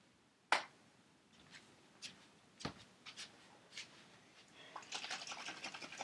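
Faint handling noises: a sharp click about half a second in, a few scattered knocks, then a quick rattling clatter near the end as items on a cart of baby-bottle supplies are handled.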